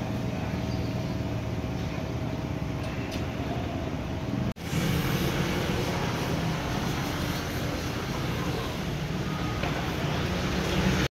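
Steady street background noise with traffic, with a faint steady hum at first; it cuts about four and a half seconds in to a slightly louder stretch of the same kind of noise.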